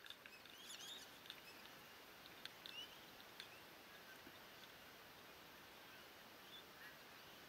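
Near silence: faint outdoor hiss with a few soft bird chirps, short rising and falling calls about a second in, near three seconds and near the end, plus a few faint ticks.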